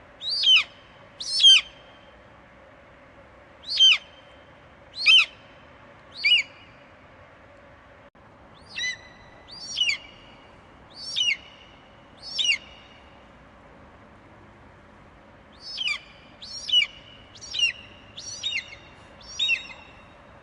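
Eagle screeching: a series of short, high calls that each slide down in pitch, repeated about once a second in loose groups of two to five, over a faint steady hiss.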